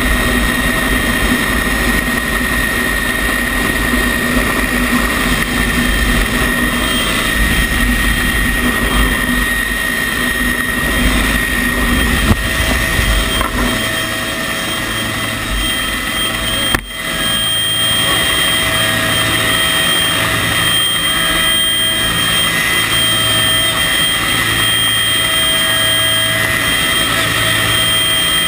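Rescue helicopter running: a steady high turbine whine over rotor noise. A heavy low rumble drops away about halfway through, and the level dips sharply for a moment shortly after.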